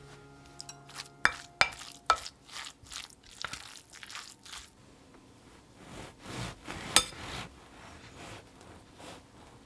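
A kitchen utensil clinking against a bowl several times, the sharpest strikes in the first couple of seconds, then a stretch of stirring and scraping with one more sharp clink.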